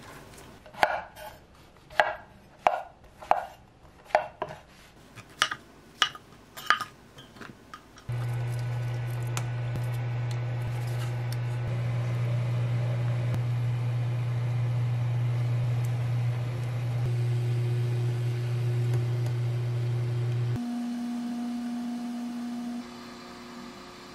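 Knife chopping on a wooden cutting board: about ten quick strikes in the first eight seconds. Then a pot of broth at a rolling boil on an induction cooktop, with a steady low hum that stops about 20 seconds in and gives way to a couple of steady tones.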